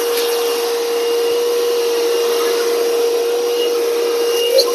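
Electric air blower running steadily: a constant rush of air with a steady motor hum, blowing out a power supply board.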